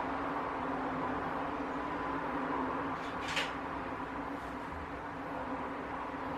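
Steady background hum with one brief, sharp sound about three seconds in.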